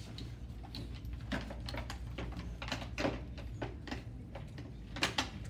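Irregular clicks and knocks of a LUCAS mechanical chest-compression device being fitted and latched onto a CPR manikin, the loudest pair of knocks near the end, over a steady low hum.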